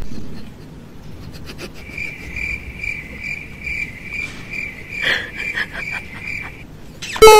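Cricket-chirp sound effect: a high chirp pulsing about two to three times a second, then stopping. Just before the end, a short, loud rising whistle-like glide.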